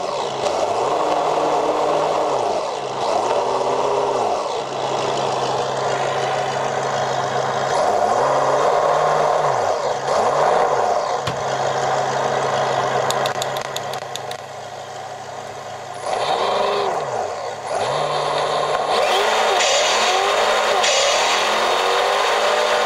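Reely sound module playing a simulated engine through its small speaker: a steady idle broken by repeated revs that rise and fall in pitch. Toward the end the RC crawler's wheels spin under throttle while the simulated engine revs through gear changes, with a blow-off-valve hiss at each shift.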